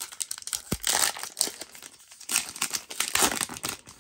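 Foil trading-card pack wrapper of Topps Chrome Sapphire being crinkled and torn open by hand, a dense crackling that comes in two louder spells, about a second in and again near three seconds.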